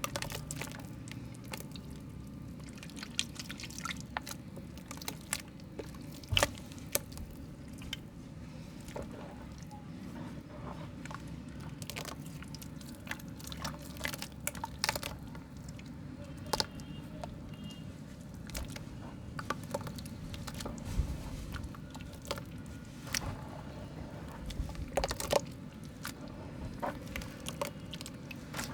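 Soft mud being crumbled and squeezed by hand: irregular moist squishes and crackles, with scattered sharper snaps.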